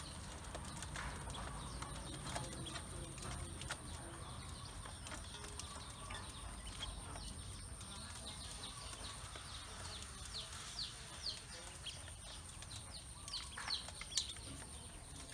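Domestic ducklings pecking at grain in a metal basin, their bills and feet making rapid, irregular clicks on the metal, with runs of short, falling high peeps, thickest from about ten seconds in.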